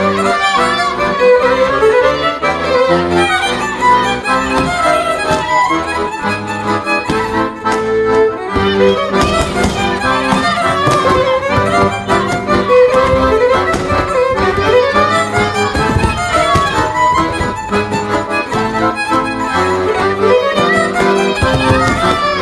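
Lively folk dance music with a fiddle carrying the melody over a chordal and bass accompaniment, played continuously.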